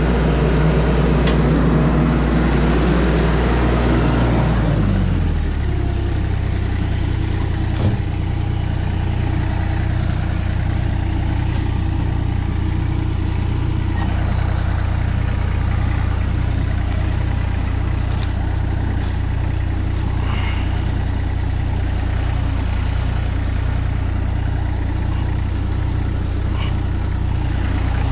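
Engine running at raised speed, then throttled down about five seconds in to a steady idle. A single sharp knock sounds a few seconds later.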